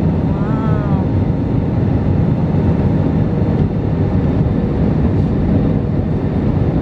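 Airliner cabin noise in flight: the steady, loud rush of the jet engines and airflow heard from a window seat. About half a second in, a brief wavering tone sounds over it.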